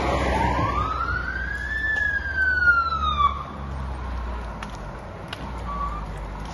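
Fire engine siren sounding one long wail that rises, then falls and cuts off about three seconds in, over a low rumble.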